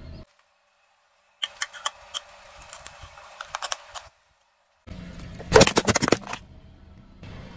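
A car tyre rolling over and crushing small objects, in two separate bursts of rapid cracking and snapping. The second burst, about five seconds in, is louder, with a low rumble from the tyre under the cracks of breaking plastic.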